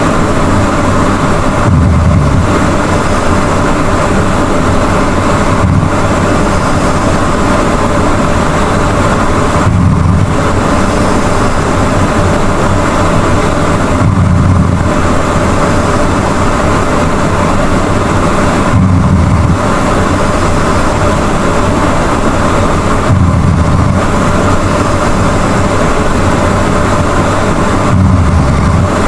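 A sleeping person snoring loudly, a low rumbling snore coming about every four to five seconds with each breath, over a steady noisy hiss.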